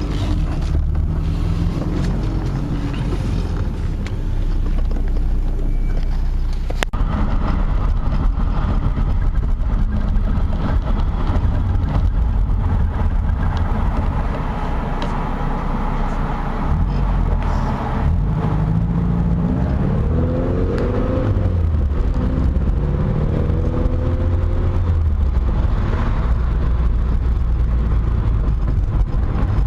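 1976 BMW 2002's four-cylinder engine heard from inside the car while driving, running steadily and then revving up several times in the second half as it accelerates through the gears.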